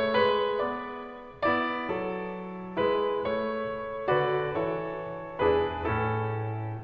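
Background music of slow piano chords, each struck and left to ring out, about one every second and a half, dying away at the end.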